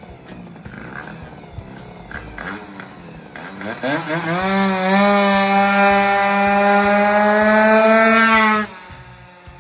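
Two-stroke single of a freshly built MBK 51 moped with a 70 cc 2Fast kit, on its first test rides. It runs faintly at first, revs up about four seconds in, then holds a loud, high, steady note that creeps slightly higher as it approaches. The sound cuts off suddenly near the end.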